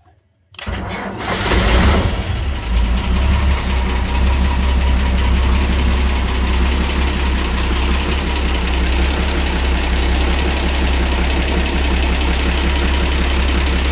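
Six-cylinder Volvo marine diesel engine from the 1960s starting from cold: it turns over and catches about half a second in, fires right up, then settles into a steady, even idle.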